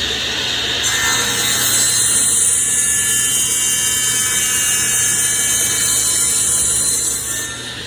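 Table saw running and ripping along the edge of a wooden board: the blade's cutting hiss comes in about a second in and holds steady, then drops back to the saw running free near the end.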